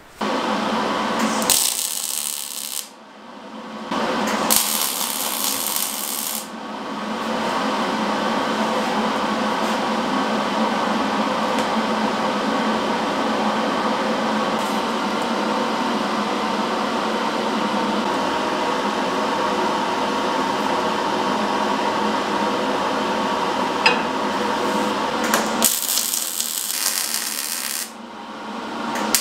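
Metalworking in a workshop: short bursts of MIG welding crackle and hiss, with a steady mechanical whir between them.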